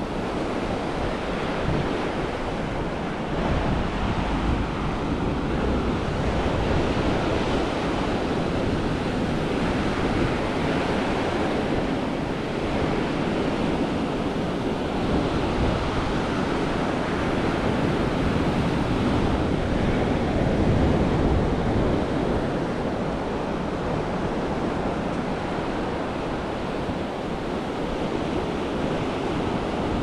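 Surf washing steadily onto a sandy beach, swelling and easing slowly, with wind buffeting the microphone as a low rumble.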